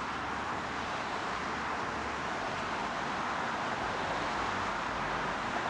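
Steady rushing noise with no distinct events, as heard from inside a vehicle.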